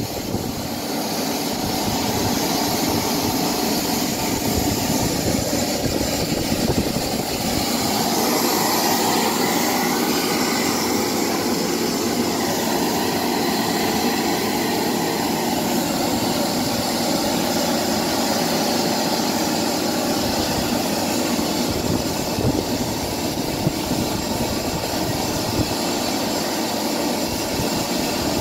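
Small model turbojet engine running with a steady, loud rush and whine, its pitch and loudness rising a little about eight seconds in.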